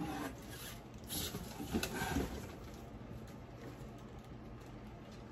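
Faint handling noise: a brief rustle about a second in and a few soft knocks around two seconds, then quiet room tone.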